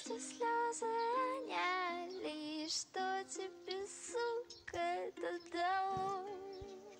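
Background music: a high voice singing a slow melody, with held notes that waver in vibrato.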